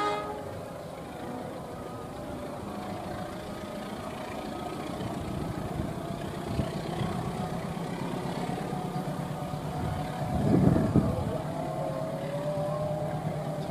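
Diesel-electric locomotive engine running as the train draws closer: a steady rumble with a droning tone that slowly grows louder, swelling briefly about ten seconds in.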